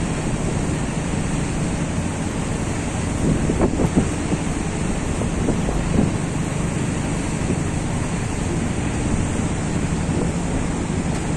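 Steady wind buffeting the microphone over the rush of river water past a moving boat, with the low steady hum of the boat's engine underneath.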